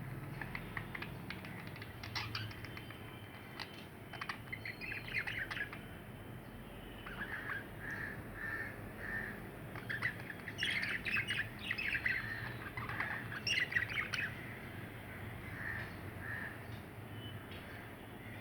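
Two budgerigars chirping and warbling back and forth in short, rapid chirps and chatter, busiest through the middle, with a run of short, evenly spaced notes.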